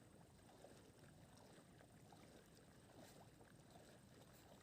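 Near silence: faint low background noise with a few tiny ticks.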